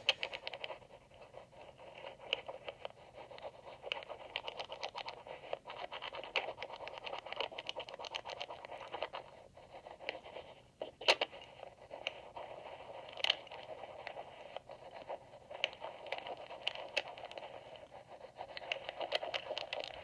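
Thin wire pick scratching and ticking against the rotors inside an EVVA MCS magnetic rotor lock, heard amplified: a steady fine scraping full of tiny clicks, with a few sharper clicks about halfway through.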